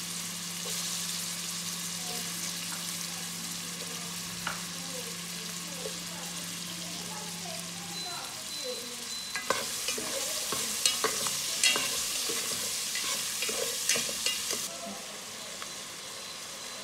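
Carrot and green pepper pieces sizzling in hot oil in an aluminium pot. From about halfway through, a spoon stirs them, with a run of sharp clinks and scrapes against the pot, and the sizzle dies down near the end.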